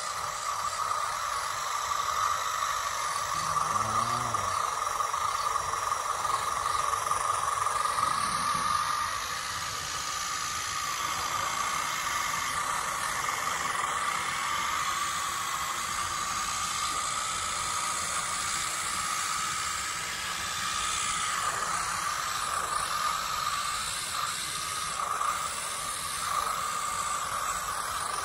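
Radio-controlled scale model tractors running while pushing soil: a steady high whine with a hiss over it, a little louder for the first several seconds, then easing off.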